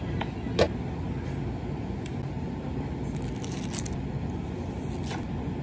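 A sharp knock, then a few faint clicks, over a steady low hum; about three seconds in, a short crackle of a drinking straw's wrapper being torn open.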